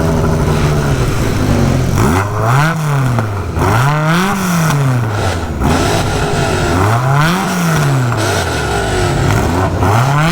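A car engine idling, then revved up and let fall back four times in a row, each rev rising and dropping smoothly in pitch.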